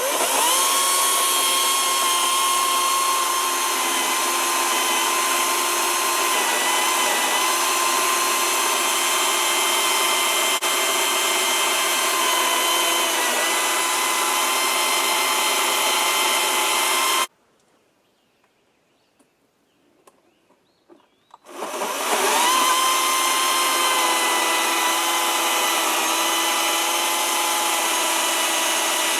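Greenworks battery-powered electric chainsaw running with a steady whine as it cuts through a large oak limb. It stops abruptly a little past halfway, leaving a few seconds of near quiet with a few small clicks, then spins back up and runs on.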